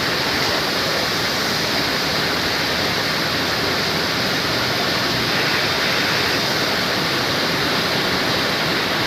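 Loud, steady rush of swollen floodwater pouring past.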